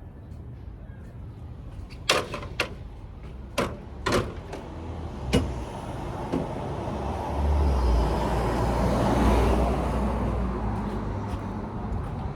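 Five sharp knocks, then a motor vehicle's low rumble that builds over a few seconds and fades again.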